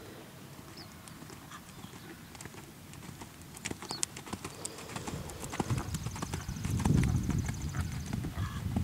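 Horse's hoofbeats on an arena's sand footing at a trot, faint at first and growing louder from about halfway as the horse passes close, with dull low thuds loudest near the end.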